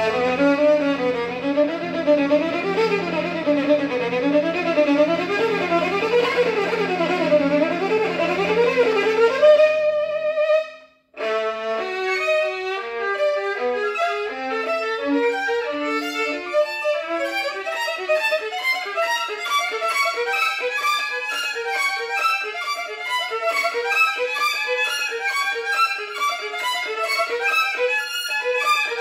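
Violin playing fast running scales that sweep up and down over sustained low piano notes, ending on a held note. After a brief silence about eleven seconds in, the violin goes on with rapid passagework, with no low notes underneath.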